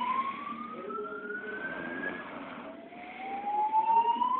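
Siren wailing: one clear tone climbing slowly over about three seconds, falling back low a little past halfway and starting its slow climb again.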